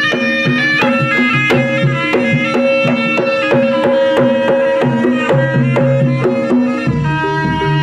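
Jaranan (kuda lumping) gamelan music: hand-drum strokes under ringing pitched notes, with a deep bass coming in near the end.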